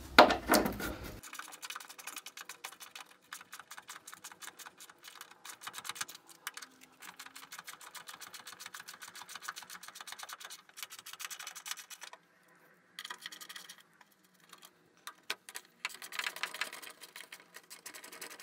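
Socket ratchet wrench clicking rapidly as nuts holding a plastic wheel-arch panel are backed off: one long run, then a few shorter runs after brief pauses.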